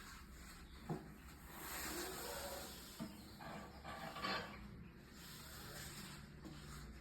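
Russell's viper hissing: faint, breathy hisses in two swells, a defensive warning from a snake that feels threatened. There are a couple of light knocks between them.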